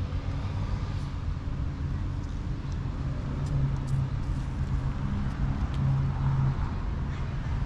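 Steady low rumble of motor traffic, swelling a little partway through, with a few faint clicks.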